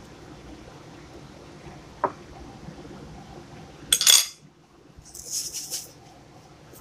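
Metal fork tapping and clinking against a ceramic plate while pressing a grilled eggplant flat: one light tap about two seconds in and a louder cluster of clinks about four seconds in. A short high hiss follows about a second later.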